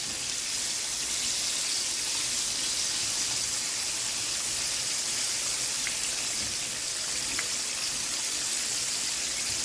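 Chicken tenders deep-frying in peanut oil: a steady sizzling hiss, with a couple of faint pops midway.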